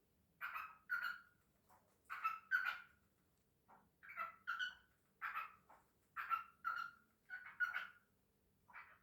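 Cockatiels calling: short chirping calls, many in quick pairs, repeated every second or so.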